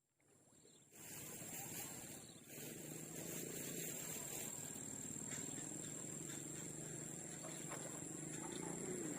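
Insects in the riverside vegetation keep up a steady, high-pitched chirring drone that comes in about a second in, over a faint hiss of outdoor noise.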